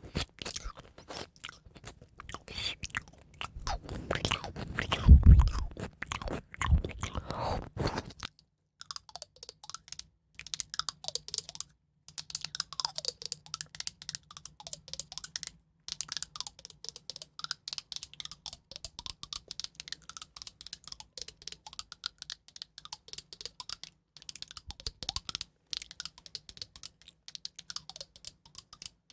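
Close-miked ASMR trigger sounds: crisp crunching and crackling for about eight seconds, loudest about five seconds in, then after a short break a long run of rapid, light tapping clicks.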